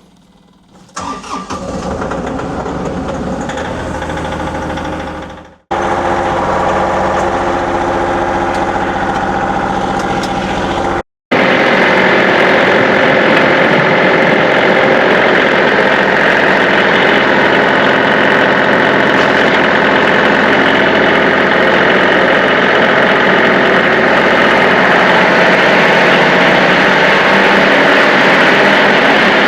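A John Deere 2038R compact tractor's three-cylinder diesel engine starting about a second in, then running steadily. The sound breaks off abruptly twice, and from about eleven seconds on the engine runs louder and steady.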